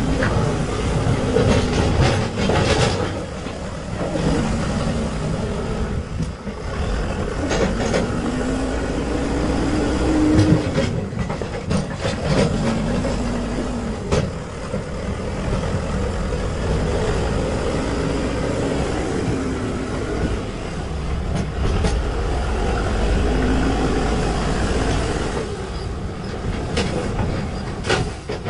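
Manitou-Terex backhoe loader's diesel engine running under load, its pitch rising and falling several times as the front bucket pushes earth and stones. Scattered clanks and knocks from the bucket and rocks come through over the engine.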